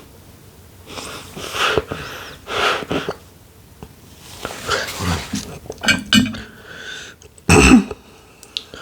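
A person breathing hard through the mouth, with several loud hissing breaths, the mouth burning from extremely spicy instant noodles, then shorter gasps and a loud short throat sound near the end.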